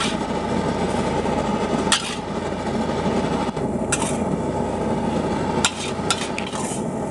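Metal spatula scraping and knocking against a steel wok while stirring vegetables in a little broth, a sharp knock every couple of seconds and a quick run of taps near the end, over a steady rushing noise from the burner.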